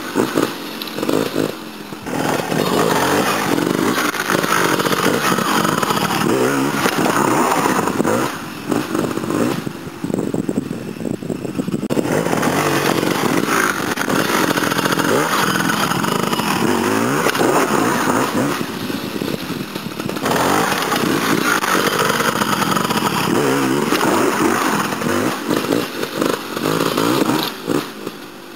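Trials motorcycle engine revving in repeated bursts, its pitch rising and falling as the throttle is worked, with short easings and one longer lull about a third of the way in.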